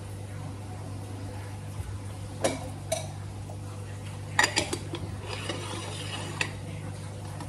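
A moka pot being put together by hand: two sharp metal clinks, then a cluster of clanks as the upper chamber is set on the base, followed by a scraping grind as it is screwed tight, ending in a click. A low steady hum runs underneath.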